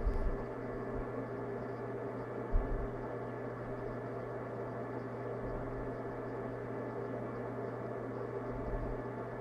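Steady hum of a running desktop computer and its fans, with a fixed low tone. Two brief low thumps, right at the start and about two and a half seconds in.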